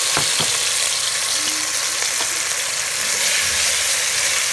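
Marinated chicken pieces sizzling and spattering in hot oil in a pot, with a couple of light spatula knocks near the start as the pieces are stirred.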